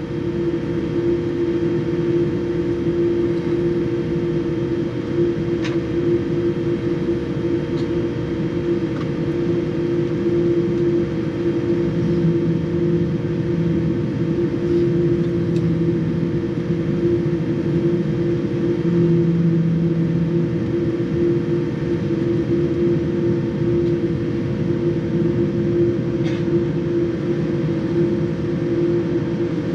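Boeing 787 cabin noise while taxiing: a steady drone from the idling jet engines with a constant hum, heard from inside the cabin, and a few faint clicks.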